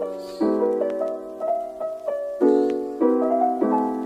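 Instrumental background music: a keyboard melody over sustained chords that are struck anew a few times.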